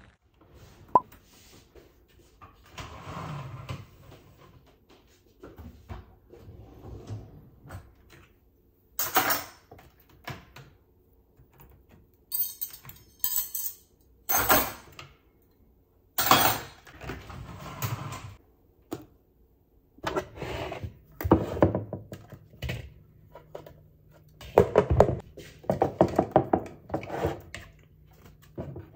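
Kitchen handling sounds: a long run of separate knocks, thunks and clatters as dishes and containers are set down and moved about, with cupboard doors or drawers. The busiest stretch of quick clicks and clatters comes in the last few seconds.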